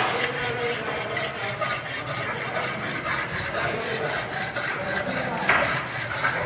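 Metal scraping and rubbing from hand work on a mild-steel clamp part, in quick repeated strokes.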